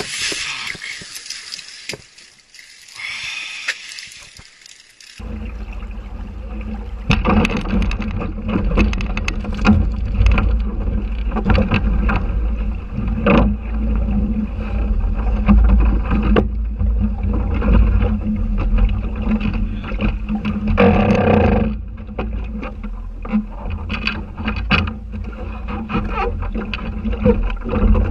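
Water splashing and churning around a canoe after a man falls overboard, dying away within about two seconds. About five seconds in, it gives way abruptly to the steady low rumble of an aluminium fishing boat under way, with wind on the microphone and scattered knocks.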